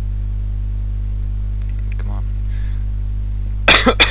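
A man coughs twice in quick succession near the end, over a steady low electrical hum on the microphone.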